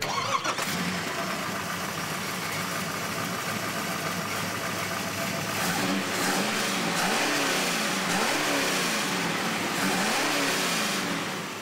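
A car engine running, then revved up and down about once a second in the second half, before the sound fades out near the end.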